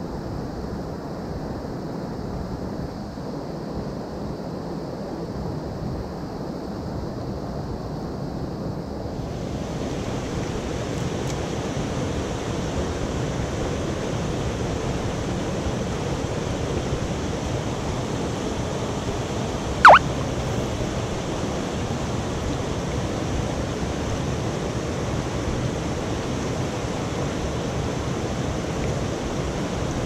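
Rushing water of a rain-swollen mountain stream, a steady rush that turns brighter and hissier about a third of the way in. About two-thirds through, a brief loud whistle falls sharply in pitch.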